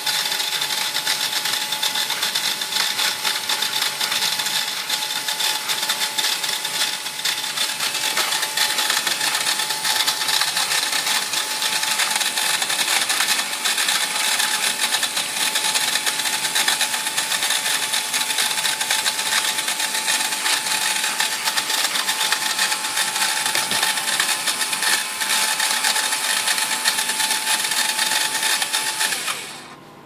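Electric motor of a vacuum cleaner converted into a Raspberry Pi robot, running steadily with a high whine over a rushing noise, then stopping near the end.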